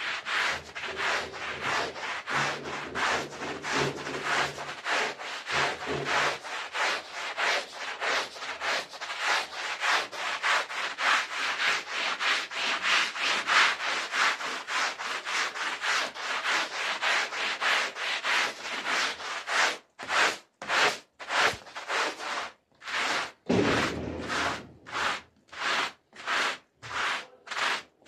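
Stiff push brush scrubbing a wet, soapy rug in quick back-and-forth strokes, a scratchy rubbing. About two-thirds of the way through, the strokes slow to separate strokes, about two a second, with short pauses between them.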